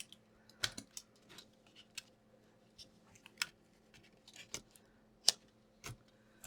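Laptop parts being handled and pressed into the plastic case as a replacement charging port is fitted: irregular light clicks and taps, with one sharper click about five seconds in, over a faint steady hum.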